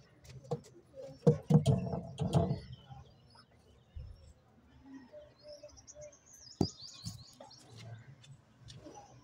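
Racing pigeons in a loft: a short burst of low pigeon sounds and rustling about a second in, then a small bird's quick run of high chirps a little past the middle.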